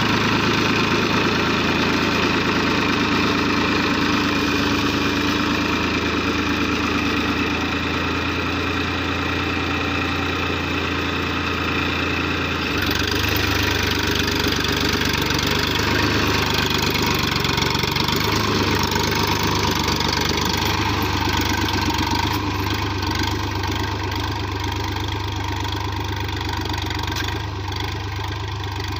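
Massey Ferguson 7250 DI tractor's three-cylinder diesel engine running steadily under load while pulling a tine cultivator through the soil. The low hum grows stronger about halfway through, and the sound eases slightly near the end as the tractor moves away.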